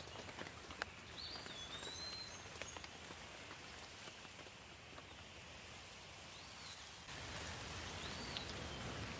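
Steady rain with scattered individual drops ticking, and a few short bird chirps. About seven seconds in, the rain gets suddenly louder and denser.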